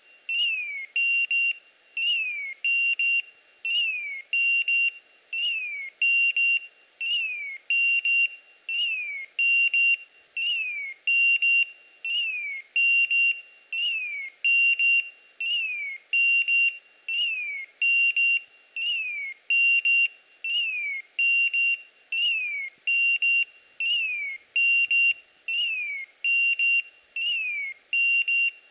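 Hunting-dog beeper collar sounding its point alarm: a steady beep followed by a falling chirp, repeated a little more than once a second. The beeper is signalling that the English setter is standing motionless on point.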